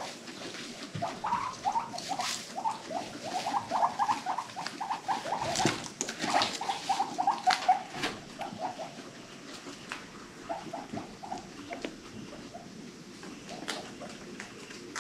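Guinea pigs giving a quick run of short pitched calls, several a second, for most of the first nine seconds, then a few scattered calls. Under them, pattering and rustling of hay with scattered sharp clicks.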